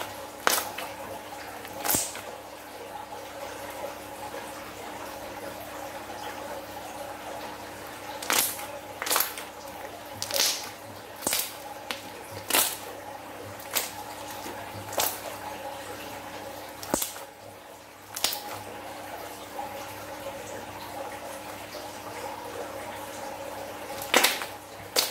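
Glossy clear slime being squeezed and kneaded by hand, giving a dozen or so irregular wet clicks and pops as air pockets in it burst.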